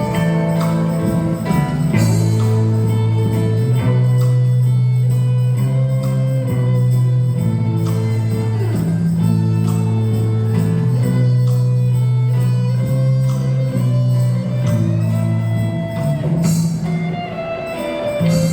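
Live instrumental ensemble music: held low notes change every second or two under a stepping melody, with plucked strings and jingling percussion.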